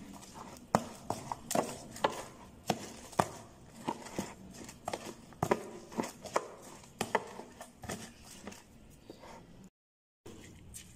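Hand-mixing raw rice filling for warak enab (stuffed grape leaves) in a plastic tub: irregular clicks and knocks, about two or three a second, from the tub and the rice being worked. After a brief cut near the end, a spoon stirs the filling.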